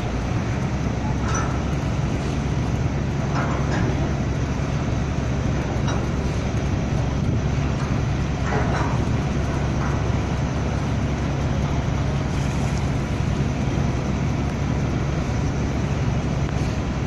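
Steady low drone of a ship's diesel engine running, with a constant hum under a wash of engine and water noise.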